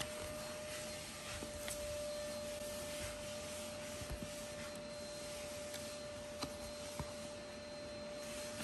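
Paperback books being handled: a hand sliding over a paper cover and pages being turned, with a few light taps. Under it runs a steady hiss with a constant faint tone.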